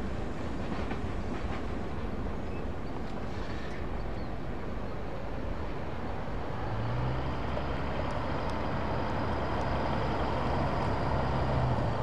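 Freight train rumbling as it moves away. A road vehicle's engine hum joins about seven seconds in.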